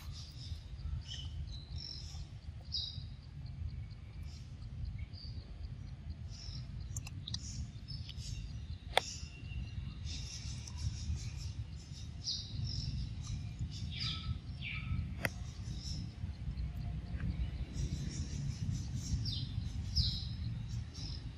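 Forest ambience: scattered short bird chirps over a steady low rumble, with a sharp click a little under halfway through and another about two-thirds of the way through.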